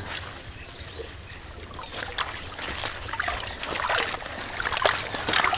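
Water splashing and trickling as a bamboo-framed push net is lifted out of shallow water, water draining through the mesh; the splashing grows louder in the second half.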